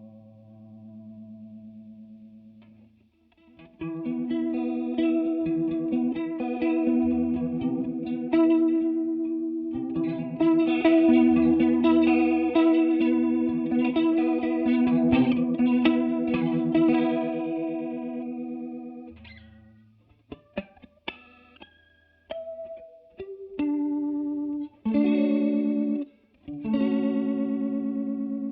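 Electric guitar played through a TC Electronic Corona Mini chorus pedal: held chords ringing with a shimmering chorus wobble, then from about twenty seconds in, short choppy chord stabs with gaps between them.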